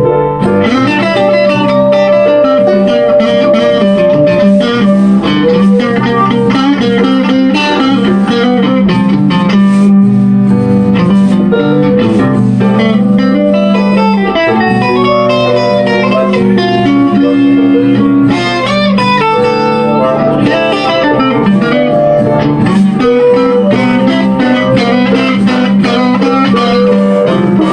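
Electric guitar playing an instrumental blues passage, a run of single notes with some bent, gliding pitches over a steady low note.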